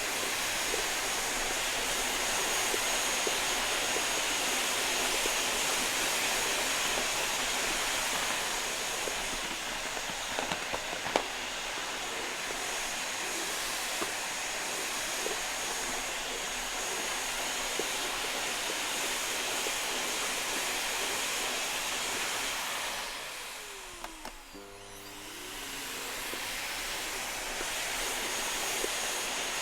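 Vacuum cleaner running steadily, a rushing airflow with a thin high whine. About three-quarters of the way through it briefly drops in level and pitch, then rises back to full.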